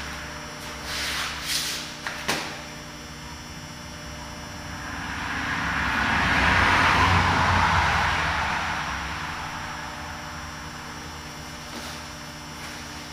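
Steady background hum with a few soft knocks in the first couple of seconds, and a rushing noise that swells to its loudest about seven seconds in and fades away again, like a vehicle going by.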